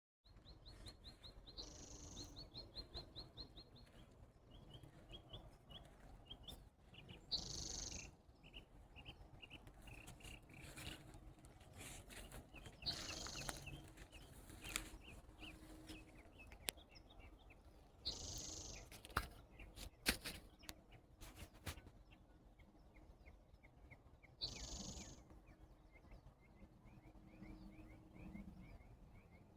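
Birds calling faintly: long rapid trills of short chirps, with a brief higher call repeating about every five and a half seconds, over a low background rumble.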